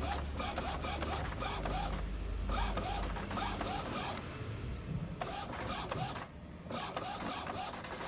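Epson L565 inkjet printer printing a test page, its newly replaced carriage belt driving the print head back and forth about three times a second, with ticks between passes and a few short pauses.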